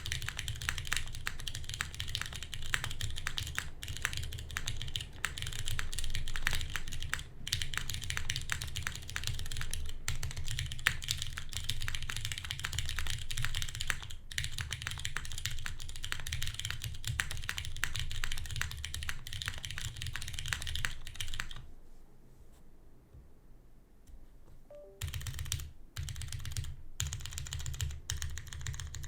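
Continuous fast typing on a custom mechanical keyboard with lubed Cherry MX Brown switches on a carbon fiber plate and GMK keycaps, a dense run of keystrokes with a bassy sound. The typing stops for about three seconds near the end, then starts again.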